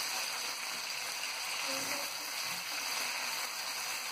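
Chopped garlic, soy sauce, chilli sauces and vinegar sizzling in hot oil in a nonstick frying pan as they are stirred with a spatula; a steady, even hiss.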